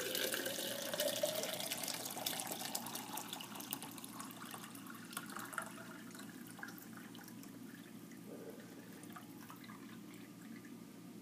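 Water pouring from a small model oil trap into a drinking glass: a splashing stream whose pitch rises as the glass fills, thinning over the first several seconds to a light trickle.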